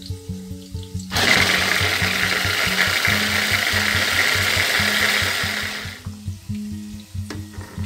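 Small electric mini food chopper running for about five seconds, its blades chopping washed chillies, with the motor held on by pressing its top. It starts about a second in and runs down just before six seconds.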